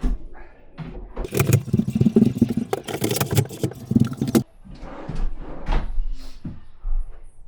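Drawers being slid onto their runners and pushed in: a loud rattling rumble from about one to four and a half seconds in, with separate knocks before and after.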